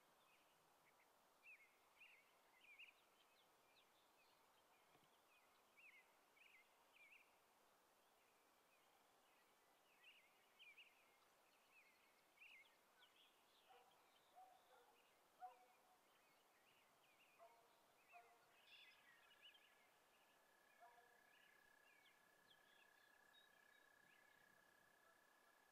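Faint small songbirds chirping, short high calls coming several times a second. A few lower, short calls come in around the middle, and a steady high whine starts about two-thirds of the way through.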